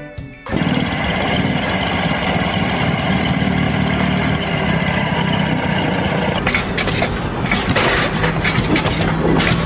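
A heavy engine running steadily, cutting in suddenly about half a second in. From about six and a half seconds, sharp clattering knocks sound over it.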